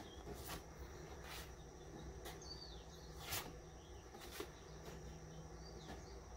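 Faint outdoor ambience: a steady high insect drone with a few short bird chirps. Over it come soft papery swishes, about one a second, of oracle cards being slid and turned by hand.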